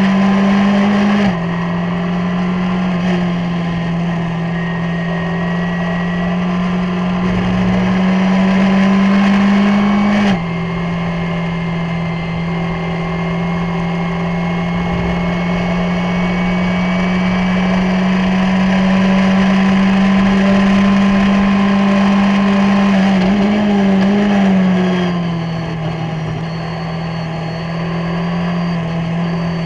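Skip Barber open-wheel race car's 2.0-litre SOHC engine pulling hard under full throttle, heard from on board. Its note drops sharply with upshifts about a second in and again about ten seconds in, then rises steadily. Near the end the revs wobble and fall as the car brakes and downshifts for a corner.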